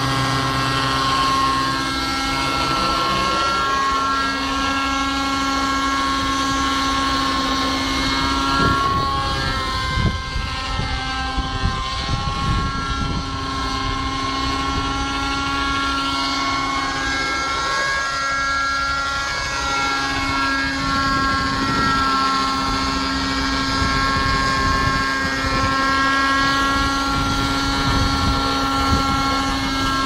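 Thunder Tiger Raptor 50 Titan nitro RC helicopter flying, its glow engine and rotor whine running steadily and shifting up and down in pitch a few times as it manoeuvres. Wind gusts rumble on the microphone.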